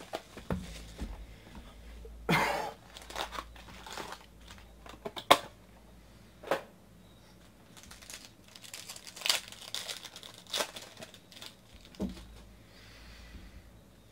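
Foil trading-card pack wrappers being torn open and crinkled by hand, in irregular crackles with a longer rip about two seconds in and a sharp snap about five seconds in.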